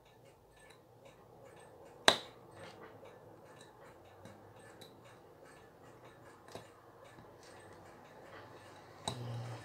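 Small metal clicks and scrapes from a spring bar tool working a spring bar out of the end of a leather watch strap, with one sharp click about two seconds in and a few lighter ones later.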